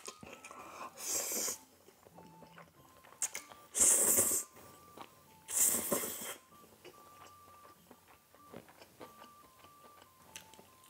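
Close-miked slurping of spicy jjajang instant noodles: three loud, hissy slurps about a second, four and six seconds in, with soft chewing and small mouth clicks between them.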